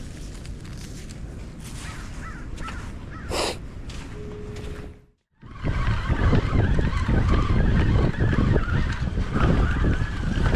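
Strong wind buffeting the microphone, with birds calling over it. The sound drops out for a moment about five seconds in, and the wind is louder after the break.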